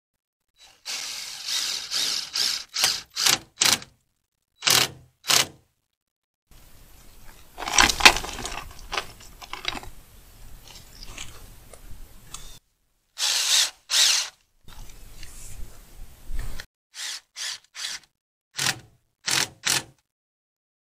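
Power drill driving self-tapping tech screws (3/4-inch, #10) through sheet metal, in a series of short bursts with pauses between them.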